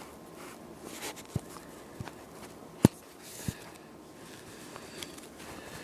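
Pokémon trading cards being handled and shuffled in the hand over a table: soft rustling with a handful of light taps and knocks, the sharpest about halfway through.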